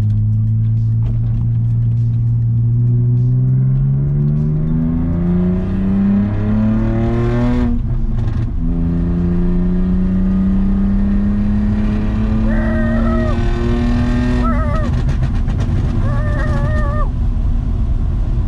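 BMW E39's engine under hard acceleration through the gears. The revs climb steadily for about eight seconds, drop with an upshift, then climb again for several more seconds before the engine note falls back near the end.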